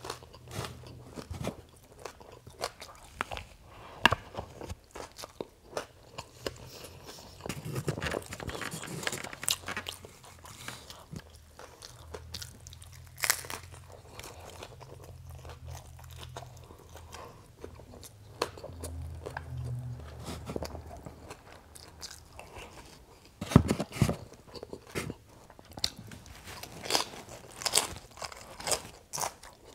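Close-miked biting and chewing of a crispy fried flauta, with irregular sharp crunches; the loudest bites come about 4, 13 and 24 seconds in.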